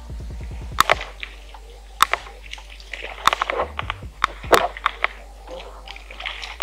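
A fishing rod cast and reeled in from a canoe: a string of sharp clicks and knocks from the reel and tackle, with light water splashing, over a steady low hum.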